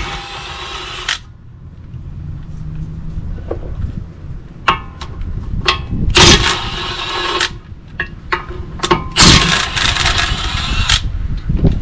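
Impact wrench running in three bursts of about one to two seconds each, undoing the three bolts that hold the lower ball joint to the control arm, with short clicks and knocks of metal between the bursts.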